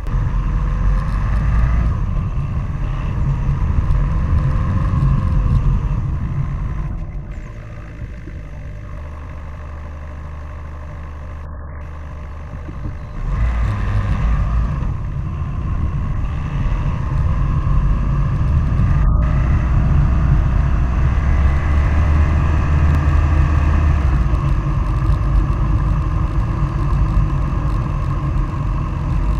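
Heavy wind buffeting on a fast-moving camera's microphone, with a low road rumble, while following a downhill longboarder. It eases off for several seconds in the middle, then builds back up.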